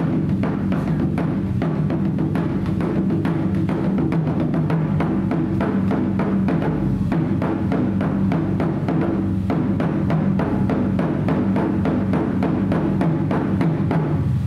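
Shamisen ensemble playing a fast, even rhythm of plucked strokes together, with taiko drum beats underneath.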